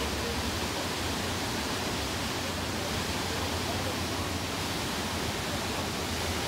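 Steady rushing of water from a burst water main, gushing up through the pavement and pouring across the street.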